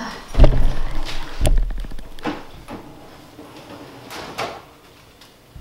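Kitchen cupboard and refrigerator doors being handled: two heavy thumps about half a second and a second and a half in, then a few lighter knocks and clicks.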